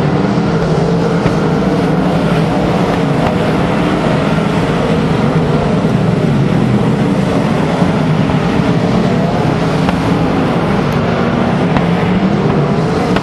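A pack of winged sprint cars racing on a dirt oval, their V8 engines blaring together in a loud, steady din with pitches wavering up and down as the cars run through the turn.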